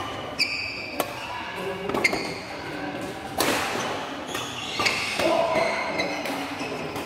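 Badminton rally: several sharp racket hits on the shuttlecock, roughly a second or so apart, with court shoes squeaking on the floor between them.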